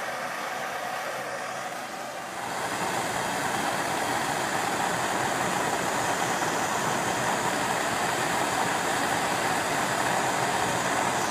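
Propane hand torch burning with a steady hiss as its flame heats a steel Allen wrench held in vise grips. The hiss gets louder about two seconds in.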